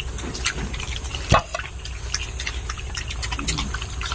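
Pigs slurping and sucking at wet feed and water, with many small irregular wet clicks and one sharper knock about a second in.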